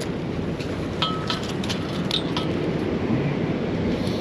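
Steady low rushing noise with a cluster of light metallic clinks, about one to two and a half seconds in, from fishing tackle while a walleye is landed.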